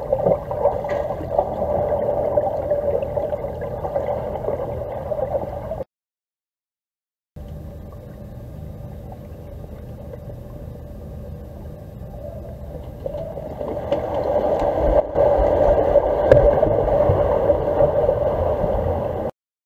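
Underwater sound of a swimming pool picked up by a submerged camera: a steady hum with a watery rush, with a couple of faint clicks about a second in. It cuts to dead silence about six seconds in, comes back quieter, swells louder a few seconds later, then stops abruptly just before the end.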